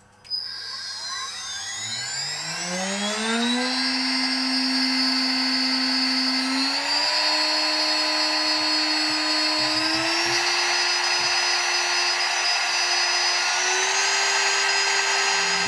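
CNC router spindle spinning up from rest to a steady high whine, then stepping up in speed three more times, held at each speed for a few seconds. This is a warm-up macro taking the spindle through a series of speeds.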